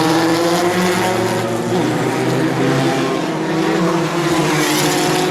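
1970s Formula 1 race cars' engines running on the circuit: a loud, sustained engine note made of several pitches that drift slightly up and down as the cars go by.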